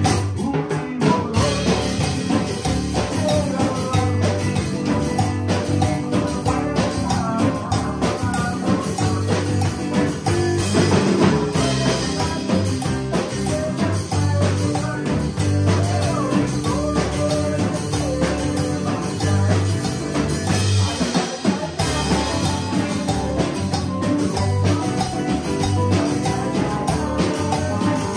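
A small live band playing a song together: drum kit with cymbals, electric bass, electric guitar and keyboard, over a steady beat with a repeating bass line.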